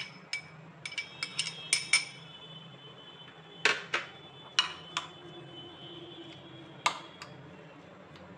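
A steel spoon clinking and scraping against a glass bowl and a ceramic bowl as grated zucchini is spooned out and spread. The clinks are sharp, some ringing briefly: a quick cluster in the first two seconds, then a few more spaced apart.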